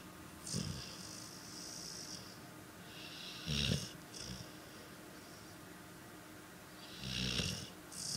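Pit bull asleep and snoring gently: three low snores about three and a half seconds apart, each with an airy hiss of breath.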